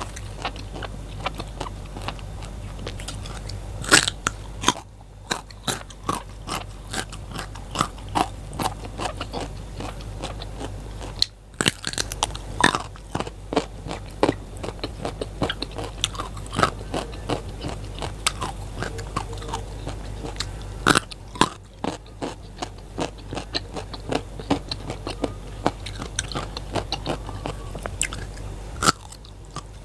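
Crisp biting and chewing of raw vegetables, a steady run of crunches with a sharp loud bite about four seconds in.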